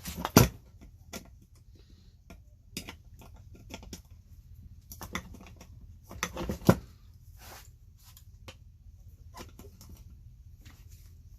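Hand tools clicking, scraping and knocking on the small parts of a portable air compressor being taken apart. Two sharper knocks stand out, one about half a second in and one near seven seconds in.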